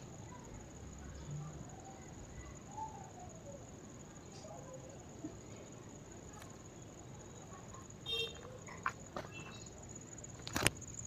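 Insects chirring: a steady, high-pitched trill that never stops. A few short clicks come in the last few seconds, the loudest just before the end.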